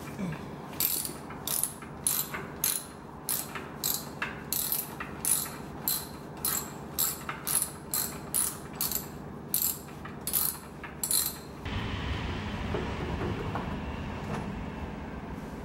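Socket wrench ratchet clicking as bolts are undone, about twenty sharp clicks at roughly two a second. This is followed, about twelve seconds in, by a steady low rumble that slowly fades.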